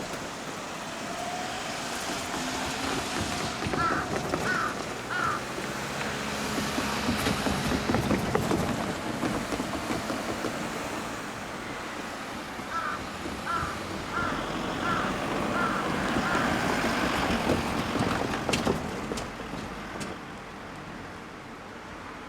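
Vehicles passing a level crossing, the noise swelling and fading twice. Short high chirps come in two quick runs, and a few sharp clicks sound near the end.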